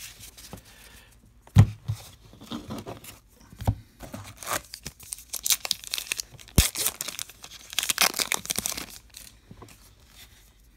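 A baseball card pack's paper wrapper being torn open by hand along its crimped top and crinkling, with the tearing densest in the second half. A few sharp knocks come earlier as the card stack is handled.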